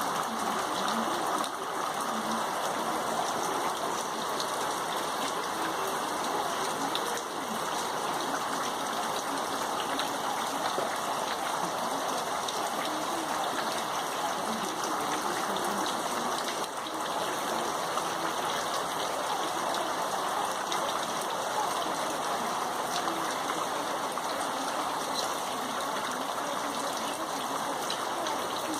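Steady rain falling: an even hiss with many faint, scattered drop ticks.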